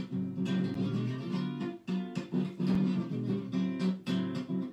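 Background music: an acoustic guitar plucked and strummed.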